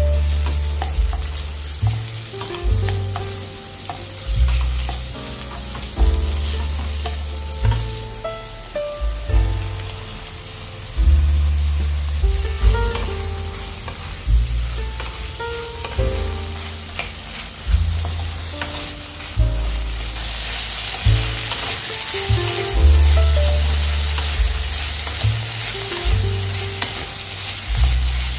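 Prawns and vegetables frying in oil in an aluminium kadai, sizzling while a wooden spatula stirs them; the sizzle grows stronger about two-thirds of the way through. Background music with a steady bass beat plays over it.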